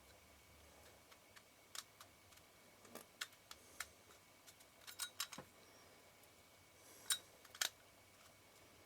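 Faint, irregular sharp clicks and taps of small metal lens parts as a camera lens's focus helicoid is worked onto its thread, with the loudest clicks about five and seven seconds in.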